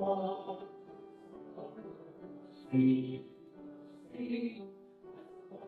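Voices singing a hymn with instrumental accompaniment, in held notes that swell louder twice near the middle.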